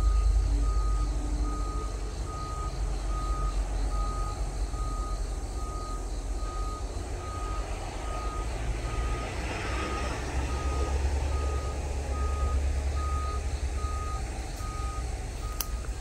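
Vehicle reversing alarm beeping steadily, one even tone repeating a little under twice a second, over the low rumble of a running engine.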